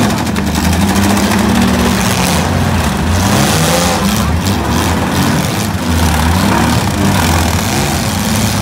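Several six-cylinder demolition derby cars' engines revving and running hard together, the pitch rising and falling as the drivers push and ram in the pit.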